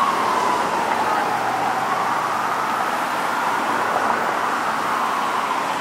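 Ambulance siren on a slow wail, gliding down, back up and down again as the ambulance drives away, over the steady noise of passing car traffic.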